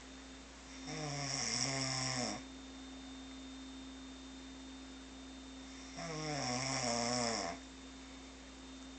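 Snoring: two long snores about five seconds apart, each lasting about a second and a half and dropping in pitch partway through, over a steady low hum.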